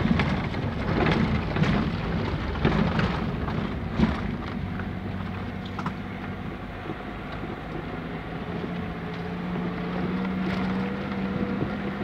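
Car engine and road noise heard from inside the cabin while driving, with sharp knocks and rattles over bumps in the first four seconds. In the second half the ride smooths out and the engine note rises slightly.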